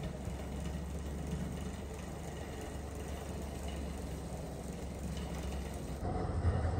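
Luggage trolley rolling and rattling over a tiled floor, over a steady low hum; the sound changes abruptly near the end.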